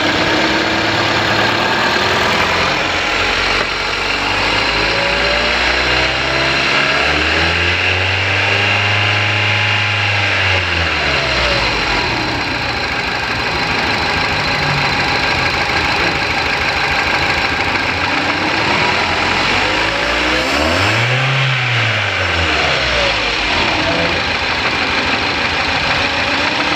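Engine idling, revved up and back down twice, the first time held for a few seconds. The engine is running with its No. 1 cylinder not firing, knocking and jerking.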